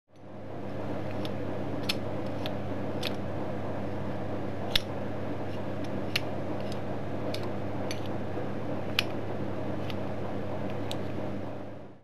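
A dozen or so sharp metal clicks at irregular intervals from a 1950s door handle's spring-loaded mechanism being worked by hand, the loudest about five and nine seconds in, over a steady low hum.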